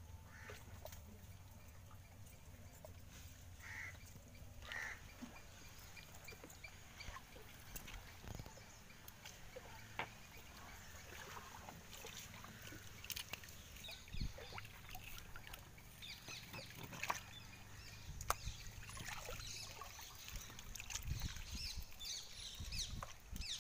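Water splashing and sloshing around a fish caught in a gill net as it is handled and worked free by hand in shallow water, with scattered small knocks; the splashing becomes busier in the second half.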